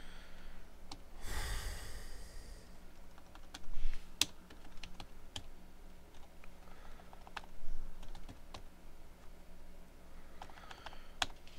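Computer keyboard typing: scattered, irregular keystrokes, with a short breathy rush of noise about a second in.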